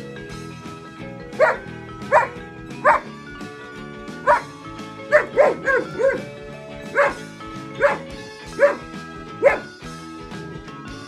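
German Shepherd dog giving about a dozen short, high-pitched barks, with several in quick succession about halfway through, over steady background music.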